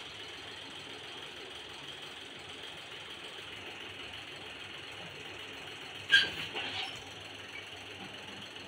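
Steady mechanical hum and hiss, with a sudden sharp clatter about six seconds in followed by a few lighter knocks.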